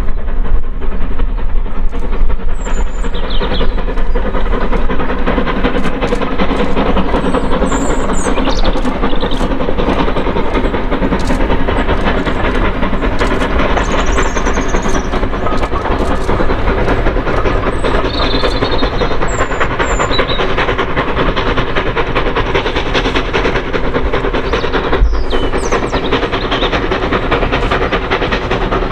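Steam-hauled train on the preserved line running past at close range: a steady rumble of wheels and carriages with repeated clicks over the rail joints.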